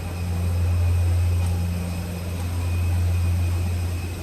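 Steady low drone of a vehicle running, heard from inside, with a faint steady high whine over it.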